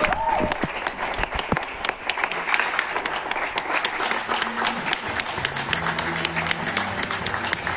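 Audience clapping steadily, many dense irregular claps. About five seconds in, low steady music begins underneath the applause.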